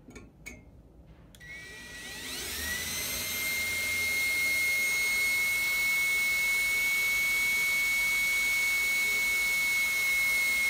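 Cordless drill with a 3/32-inch pilot bit drilling through an aluminum frame tube. About a second and a half in, the motor whine starts, rises in pitch over about a second, then holds a steady high whine.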